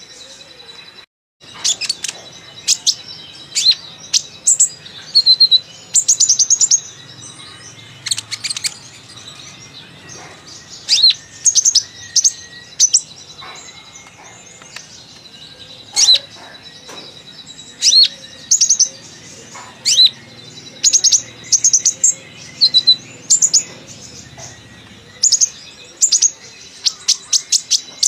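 Olive-backed sunbird (kolibri ninja) singing busily: short, quick runs of high chirps and trills, about one a second, with learned song phrases (isian) mixed in.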